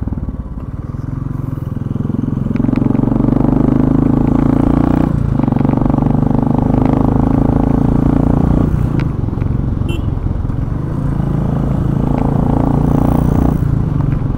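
Royal Enfield Bullet's single-cylinder engine running while riding, heard from the rider's seat. The steady low engine note drops off briefly twice, about five and nine seconds in, then picks up again.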